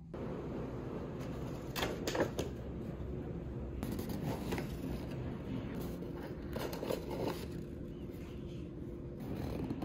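Paper pastry boxes being handled and opened: a few short clusters of cardboard clicks and rustles, at about two seconds, four and a half seconds and seven seconds, over steady room noise.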